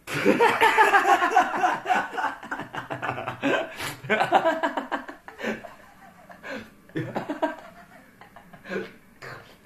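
A burst of human laughter that starts suddenly and is loudest over the first two seconds, then goes on in shorter, quieter fits.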